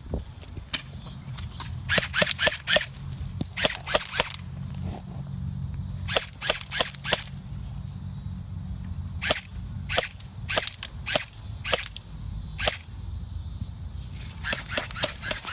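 Airsoft guns firing: quick volleys of several sharp snaps, then single shots spaced about half a second to a second apart, and another quick volley near the end.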